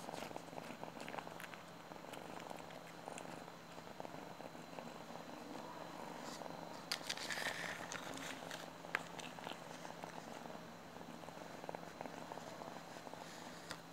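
Tabby kitten purring steadily right at the microphone, with short crackly rustles of fur rubbing against it, the most prominent about halfway through and a sharp click a little later.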